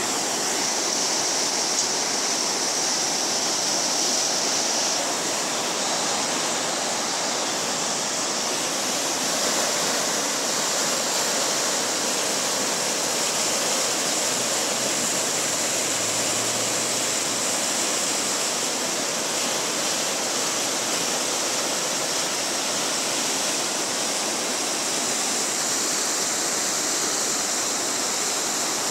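Muddy flash-flood water rushing down a full wadi: a steady, unbroken rushing noise.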